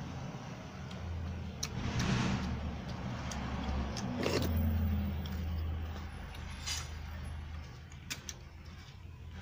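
Eating by hand: fingers working rice on a plate and chewing, with scattered clicks and mouth smacks, the loudest about four seconds in. A steady low rumble runs underneath.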